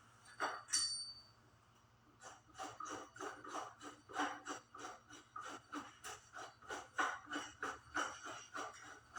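A single metallic ping, then a long run of quick ratcheting clicks, about four to five a second, from a bicycle part or tool being worked during a BMX teardown.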